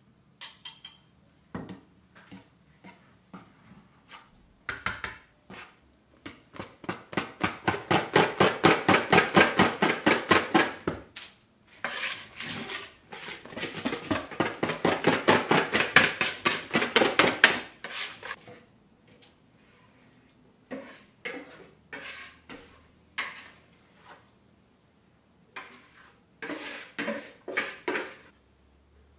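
Wire balloon whisk beating sponge-cake batter in a bowl: rapid, rhythmic clinks of the wires against the bowl, about six strokes a second, in two long runs. Near the end come slower scattered taps and scrapes of the whisk on the bowl.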